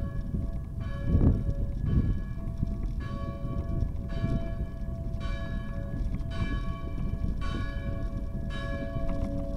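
A single church bell tolling about once a second, each stroke ringing on with the same tones, over steady low wind and road rumble from a bicycle ride on a brick street.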